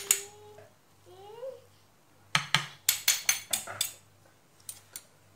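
A metal serving spoon scraping and clinking against a clay dish while scooping diced vegetables. A quick run of sharp clinks comes about two seconds in, and a couple more near the end.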